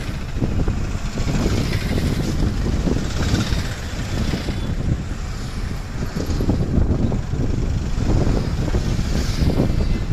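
A car driving along a road, heard from inside the cabin: a continuous low rumble of engine and tyres that swells and dips unevenly.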